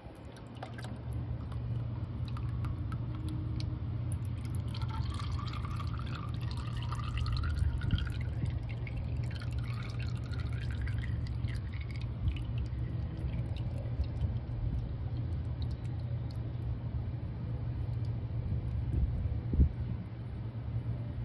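Used engine oil trickling and dripping from the oil filter mount into a drain pan, with a wavering pouring sound for several seconds in the first half, over a steady low rumble.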